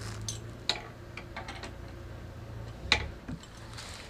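Light metallic clicks and taps of a replacement chrome muffler being fitted and secured on a motorcycle exhaust by hand, with one sharper click about three seconds in. A faint steady low hum runs underneath and drops away just before that click.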